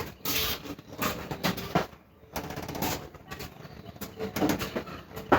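Irregular knocks, clicks and rustles of parts and packaging being handled while a cordless table saw is unboxed.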